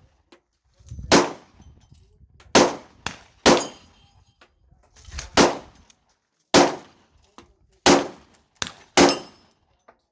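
Glock 20 10mm pistol firing a slow string of seven loud shots roughly a second or so apart, each with a short ringing tail, with two fainter reports in between.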